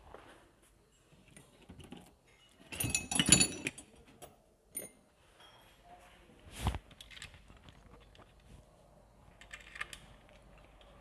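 Metal engine parts and hand tools being handled: scattered small clicks and clinks, a burst of metallic jangling about three seconds in, and a single dull knock a little past halfway.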